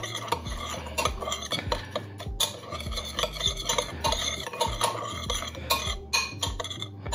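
Metal spoon stirring a dry spice rub in a glass bowl: continuous gritty scraping with small clicks of the spoon against the glass.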